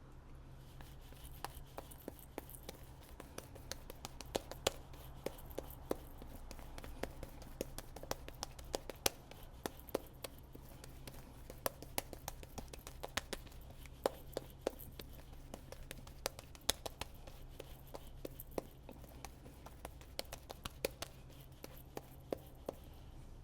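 Safety razor with a Kai blade cutting lathered stubble: irregular crisp crackling clicks, several a second, as the blade scrapes across the face in short strokes.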